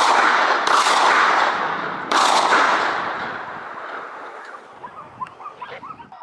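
Three shotgun shots at a running wild boar. The first is still ringing as the sound begins, and the others come about a second and two seconds in. Each shot echoes and rolls away across the hillside.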